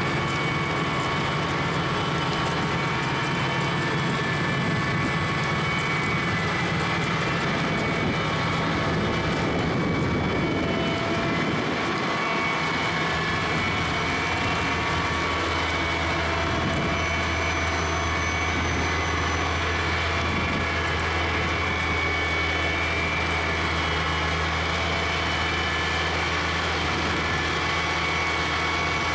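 Rotary snow blower truck running steadily, its engine droning as the cutter head and blower throw snow out of the chute. The low drone shifts in pitch about halfway through.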